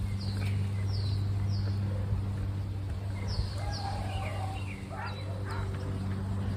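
Birds calling: a run of short, high chirps that drop in pitch, coming every second or so, over a steady low hum.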